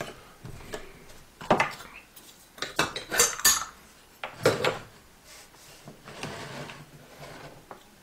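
Metal parts of a vintage electric moka pot clinking and knocking together as it is taken apart: several sharp clinks in the first half, then softer scraping as the pieces are lifted off.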